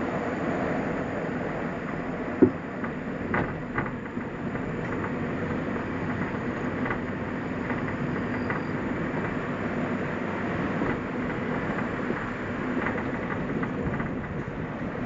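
Suzuki Jimny driving on a winding mountain road: a steady engine and road-noise rumble with a constant low hum. There is a sharp knock about two and a half seconds in, followed by a few smaller knocks and rattles.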